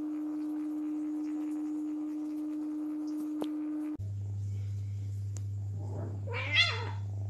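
Short cat cry, rising then falling in pitch, near the end; it is the loudest sound. It comes from a cat being mounted by a tomcat during mating. Under it runs a steady electrical hum that drops abruptly to a lower hum about four seconds in.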